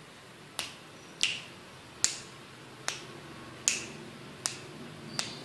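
Fingers snapping at an even pace, about seven sharp snaps a little under a second apart, to call a kitten over.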